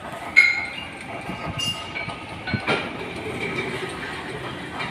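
A steel power-loom crankshaft clanks against its roller jig as it is handled: a sharp ringing metal clang about half a second in and a duller knock a couple of seconds later, over steady machine noise.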